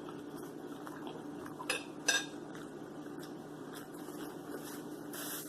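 Two quick clinks of tableware, about a second and a half and two seconds in, over a faint steady hum.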